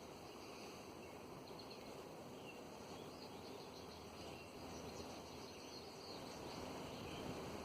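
Quiet outdoor ambience: a steady low background noise with scattered faint, high, short chirps from small birds or insects.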